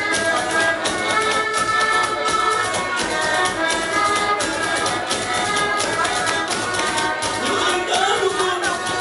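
Cape Verdean batuku: voices singing over a fast, even beat of slapped percussion that never lets up.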